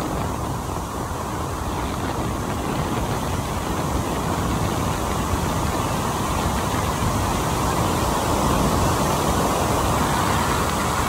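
Steady rush of airflow noise from the airstream past a glider's cockpit, picked up on a phone's microphone held at the canopy. It grows a little louder toward the end.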